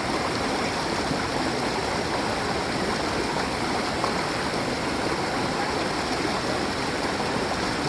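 Mountain stream rushing steadily, an even hiss of running water.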